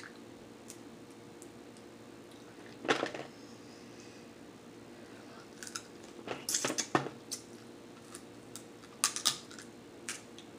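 Snow crab leg shells being cracked and snapped open by hand and eaten: sharp cracks and clicks in short clusters about 3, 7 and 9 seconds in, over a faint steady hum.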